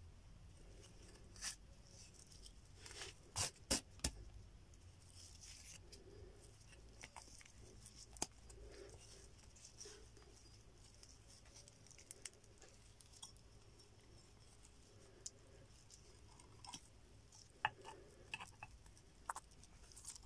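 Faint rustling and scattered small clicks of twisted fibre cord being wound and pulled tight around a bone handle by hand, with a few sharper clicks about three to four seconds in.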